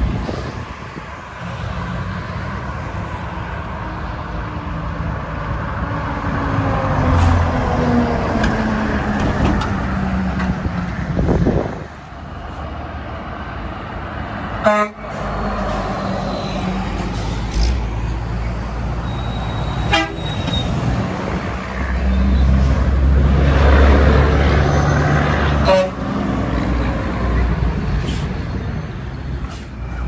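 Diesel semi trucks passing on a highway with air horn honks; one passing sound drops in pitch partway through, and engine rumble swells again near the end.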